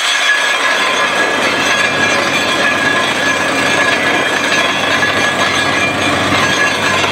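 Truck-mounted borewell drilling rig drilling, with soil and rock cuttings blasting up out of the borehole around the drill pipe: a steady, loud rush of noise with a steady high tone running through it.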